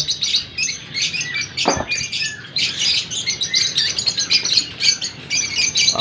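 A flock of lutino parrots in an aviary chirping and chattering continuously, with one knock a little under two seconds in.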